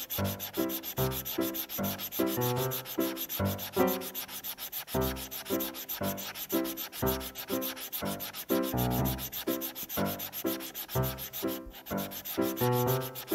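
Steady rhythmic background track of short changing notes over a low bass line, with a continuous scratchy, rubbing texture.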